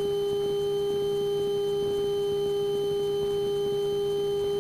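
A steady, unchanging electronic hum: one pitched tone with a few fainter higher tones, from electrical noise in the cockpit audio feed.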